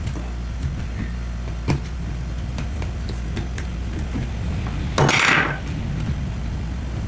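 Small screwdriver and screws clicking against a hair dryer's plastic housing while its screws are being taken out, with a brief louder scrape about five seconds in, over a steady low hum.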